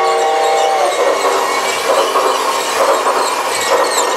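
Battery-operated G scale toy train running past on its track, its wheels clattering and its motor running. A steady chord of held tones stops about a second in.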